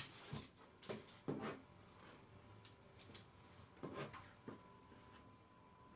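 Near silence: quiet room tone with a handful of faint, short soft knocks and rustles scattered through.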